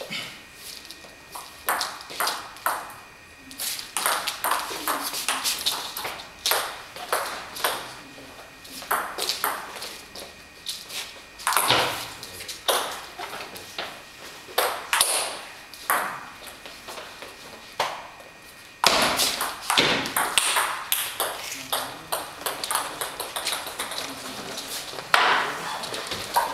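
Table tennis ball clicking off the bats and the table during rallies: runs of sharp ticks, with short gaps between points.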